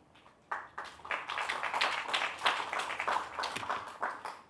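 Audience applauding, a dense patter of many hands clapping that starts about half a second in and dies away just before the end.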